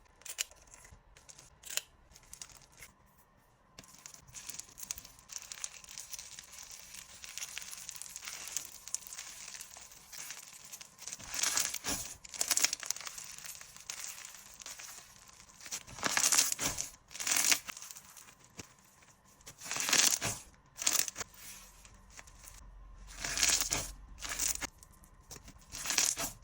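Crunchy bingsu-bead slime being worked by hand, giving a steady crackling and crunching. In the second half, louder squeezes come every few seconds.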